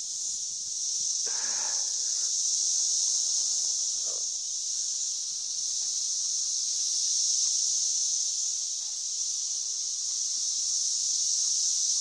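Chorus of 13-year periodical cicadas (Brood XIX) giving their mating call together: a continuous high-pitched buzzing drone that gently swells and eases.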